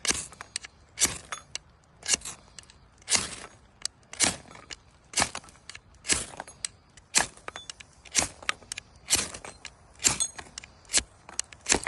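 A steel striker scraped hard for sparks about once a second, a dozen sharp rasping strikes in a row, to get an ember going in King Alfred's cake fungus.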